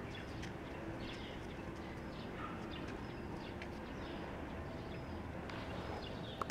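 Outdoor ambience: a steady low background hum with small birds chirping now and then, and one short, sharp note near the end.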